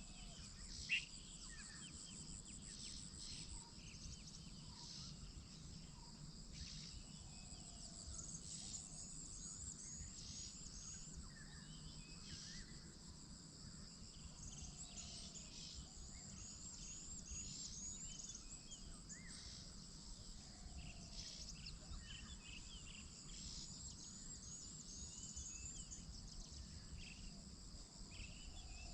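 Faint outdoor ambience of many small birds chirping and twittering, with a high, rapid insect-like trill that comes and goes, over a low steady rumble.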